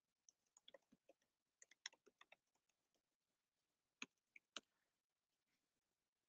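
Near silence: room tone with scattered faint clicks from working a computer's keyboard and mouse, a cluster in the first two and a half seconds and three more about four seconds in.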